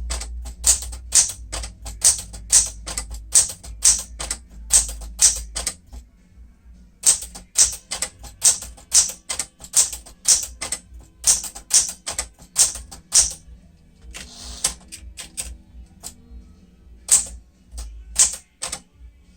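Sears Citation 12 manual typewriter (a Smith-Corona clone) with its keys struck one after another, about two sharp type-bar strikes a second, in a letter test showing that every key works. The typing pauses briefly twice.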